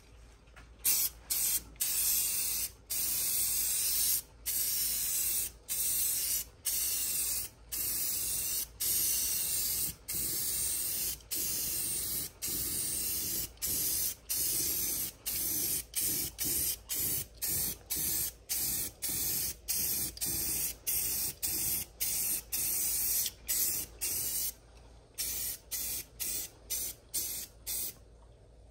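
Krylon aerosol spray paint can spraying matte black in repeated hissing bursts of about a second each with brief pauses between, the bursts getting shorter and quicker near the end.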